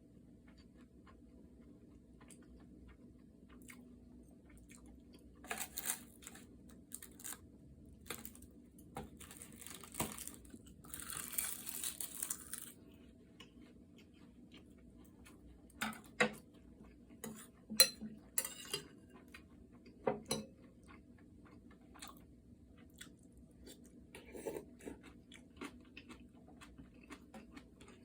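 Eating sounds: intermittent chewing and crunching with scattered sharp clicks, including a longer crunchy stretch about ten seconds in and a loud click a little past halfway.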